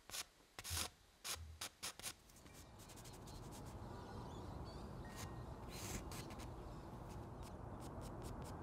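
Charcoal scratching across paper in short quick strokes as a portrait is sketched, several in the first two seconds and more scattered after. A low steady background noise rises beneath them from about two seconds in.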